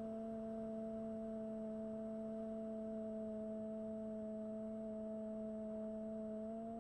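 Bixler 1 model plane's electric motor and propeller humming at a steady throttle, one even pitched tone with overtones that rises slightly near the end.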